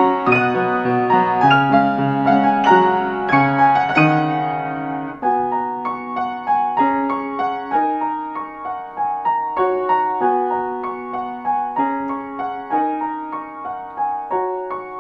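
Solo piano music. About five seconds in the low bass notes drop out and it goes on with lighter chords and melody in the middle and upper register.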